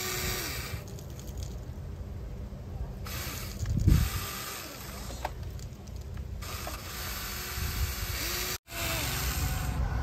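Small electric motors of a Huina 593 radio-controlled toy excavator whining in short bursts that glide up in pitch and level off as the arm and bucket move, over a low rumbling noise. There is a thump about four seconds in, and the sound cuts out for a moment near the end.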